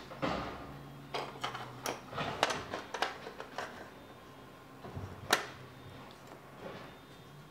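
Plastic LEGO Duplo bricks clicking and clattering as they are handled on a wooden floor: a quick run of light knocks in the first few seconds, then one sharper click about five seconds in.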